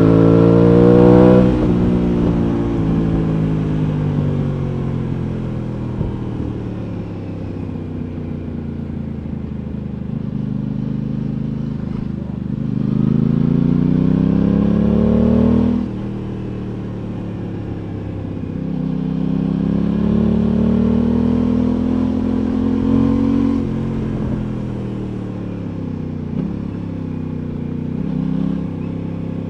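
Aprilia Tuono 660 parallel-twin motorcycle engine under way. Its pitch rises and falls with the throttle: it climbs and then cuts back sharply about a second and a half in, climbs and drops again about halfway through, then winds up once more and settles lower near the end.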